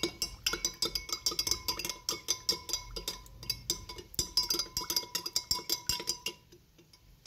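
Metal spoon clinking quickly and repeatedly against the inside of a drinking glass while stirring cornflour into water to make a thickening slurry, each clink leaving a short glassy ring; the stirring stops about six seconds in.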